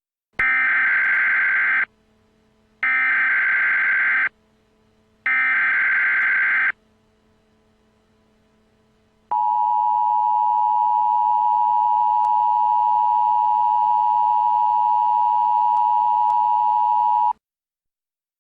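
Emergency Alert System tones: three short bursts of SAME header data, each about a second and a half with about a second between them, then the EAS two-tone attention signal held steady for about eight seconds before it cuts off.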